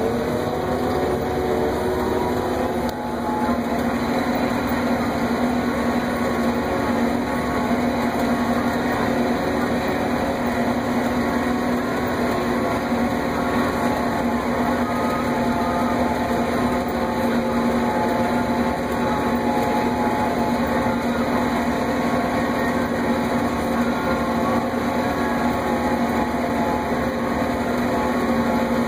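Self-propelled swather running steadily while cutting sorghum-sudangrass, heard from inside the cab: a constant machine drone with a strong steady hum.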